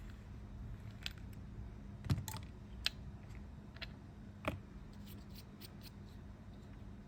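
Scattered light clicks and taps of small parts being handled during disassembly of a radiator fan, with a low steady hum underneath. The strongest knocks come about two seconds in and about four and a half seconds in.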